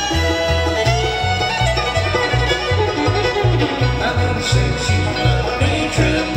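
Bluegrass band playing live: banjo, fiddle and guitar over an upright bass that thumps out a steady beat.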